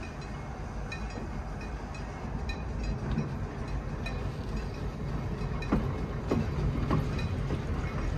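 Pacific Electric 'Blimp' interurban electric car rolling slowly past on steel rails, its wheels rumbling louder as it nears. A few clunks from the wheels come about two-thirds of the way in.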